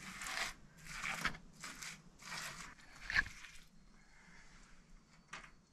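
Gloved hand rubbing and pressing loose earth mix onto an earthbag wall: a run of short gritty scraping strokes that stops about three and a half seconds in, followed by a faint click near the end.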